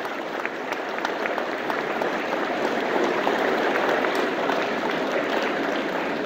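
A church congregation applauding steadily, many hands clapping at once.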